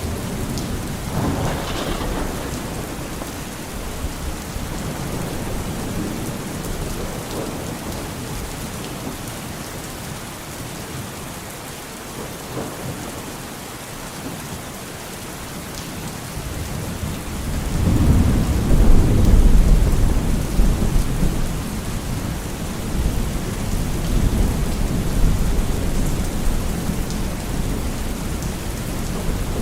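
Steady heavy rain falling, with rolling thunder: a low rumble about a second in and a louder, longer roll a little past the middle that slowly dies away.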